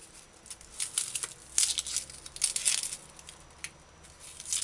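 Dry, papery onion skin crackling and tearing as its brown outer layers are peeled off, in a run of rustles starting about a second in and again near the end.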